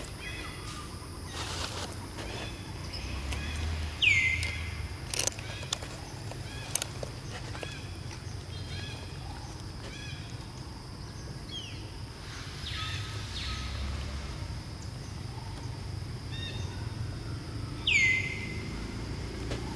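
Birds calling in woodland: a few loud calls that drop quickly in pitch and then hold a steady note, several seconds apart, over lighter scattered chirps.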